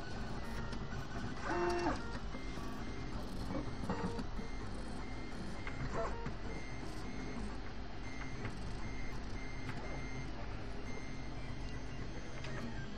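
3D printer running: steady fan hum under the whine of the stepper motors as the print head moves, with a louder rising motor whine about one and a half seconds in and shorter ones later. A faint high tone switches on and off at even spacing.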